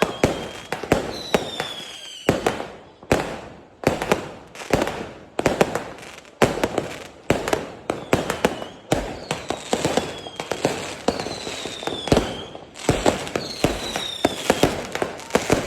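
Fireworks display: a rapid, irregular run of sharp bangs from bursting shells, with a few high whistles from shells in flight that fall slightly in pitch.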